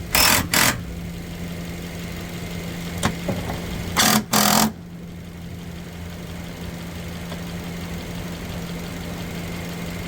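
2012 Subaru Impreza's flat-four engine idling steadily. Two pairs of short, loud clattering handling noises break in, right at the start and again about four seconds in.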